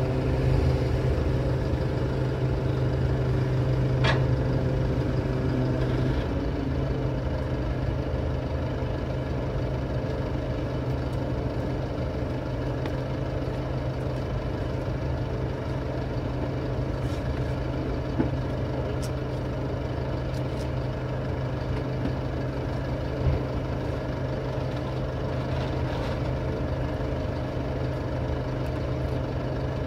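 Flatbed tow truck's diesel engine idling steadily with a low hum, with a few faint clicks and knocks.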